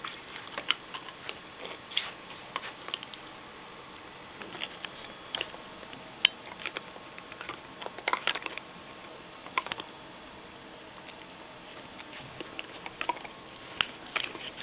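Shetland Sheepdog puppy chewing a large rawhide bone: irregular clicks and crackles of its teeth on the hide, some in quick clusters.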